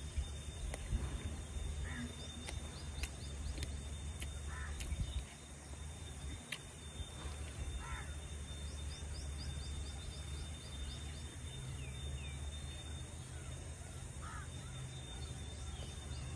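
Outdoor woodland ambience: birds calling now and then, with a few harsh crow-like caws, and two runs of quick high chirps. Under it lie a low steady rumble and a thin steady high tone.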